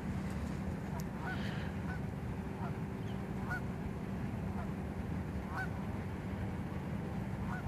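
Geese honking: a series of short calls, roughly one a second, over a steady low background noise.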